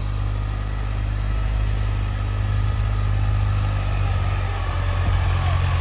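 New Holland 35 hp tractor's diesel engine running steadily under load as it pulls a nine-tine cultivator through the soil, a low even hum that grows a little louder near the end.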